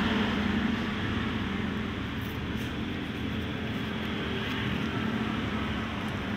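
Steady rumble and hiss of road traffic, with no single event standing out.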